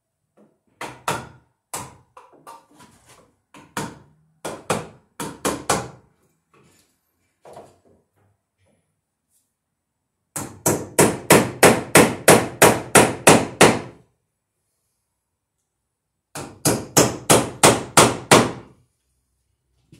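Hammer driving a nail into a wooden wall stud. A few scattered taps come first, then two fast runs of blows at about four a second, one around the middle and one near the end.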